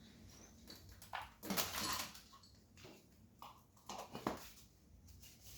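Irregular knocks, taps and clattering of tools and metal fittings being handled during a fridge repair, the loudest about a second and a half in.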